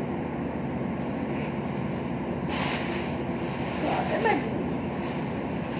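Plastic bag crinkling and rustling as clothes are dug through, loudest about two and a half seconds in and again around four seconds, over a steady low background hum.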